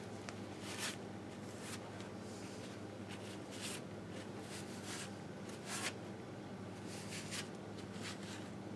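A cloth rag rubbed and wiped over the grimy crankcase of a 1958 Harley-Davidson Sportster engine, in short, irregular scrubbing strokes, over a steady low hum.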